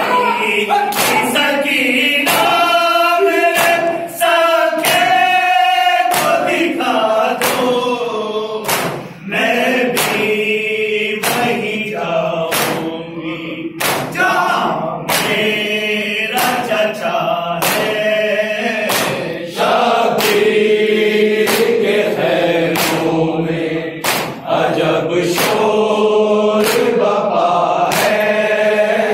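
Group of men chanting a noha, a Shia lament, in unison, kept in time by steady hand slaps on the chest (matam), a little faster than one a second.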